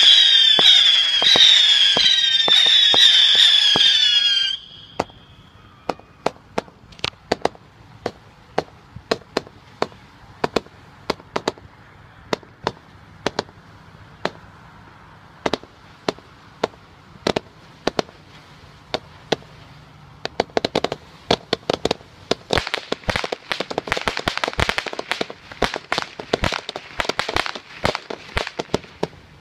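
Old Class B-era Phantom Fireworks 200-shot cake firing. For about the first four seconds shrill whistles scream over the shots. Then comes a steady run of sharp pops a few per second, which grows faster and denser over the last nine seconds.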